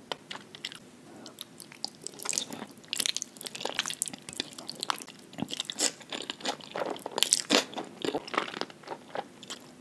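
Close-miked ASMR eating sounds of jajangmyeon, wheat noodles in black bean sauce, being slurped off chopsticks and chewed: a run of wet smacks and clicks that gets much busier about two seconds in.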